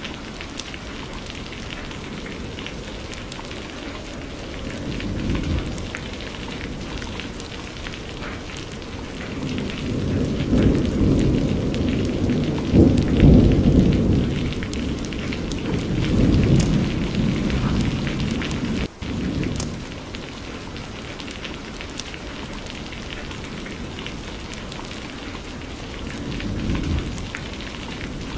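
Steady rain falling, with low thunder rolling in about a third of the way through, swelling to its loudest near the middle and fading; fainter rumbles come near the start and near the end. The sound drops out for an instant about two-thirds through.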